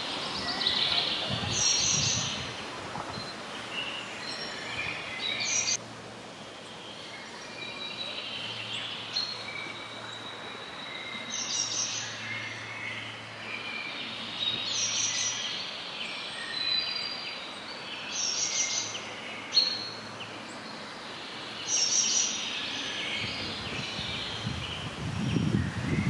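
Wild songbirds singing in woodland: short, high-pitched phrases recur every few seconds over a steady background hiss.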